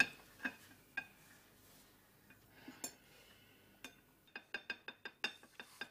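Metal cutlery clinking against dishes as someone eats: a few scattered taps, then a quick run of clinks over the last two seconds.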